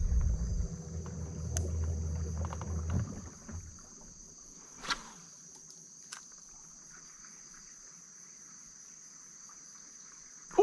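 A steady, high-pitched insect chorus that keeps on through the whole stretch. A low rumble sits under it for the first three seconds, and a few short clicks come in.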